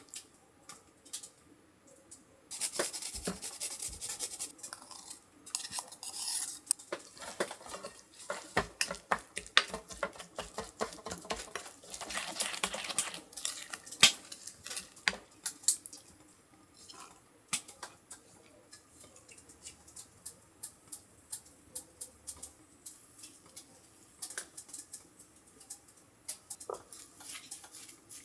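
Dishes and cutlery clinking and scraping as food is handled: many sharp knocks of utensils on bowls and plates, with denser stretches of scraping or stirring a few seconds in and again around the middle.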